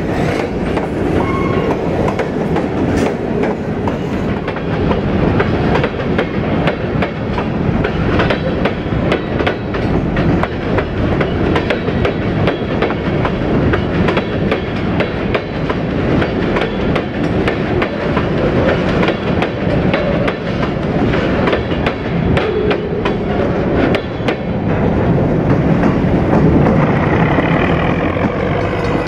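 Freight train of covered hopper cars rolling past close by. The wheels clack over the rail joints in a steady stream of clicks over a heavy rumble, and the sound grows louder for a few seconds near the end.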